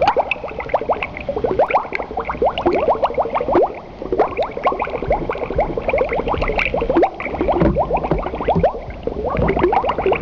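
Continuous bubbling, a dense run of many quick rising plops like water boiling or gurgling.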